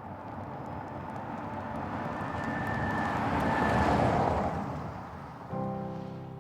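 A vehicle passes by: its noise swells to a peak about four seconds in and then fades away. A soft piano chord comes in near the end.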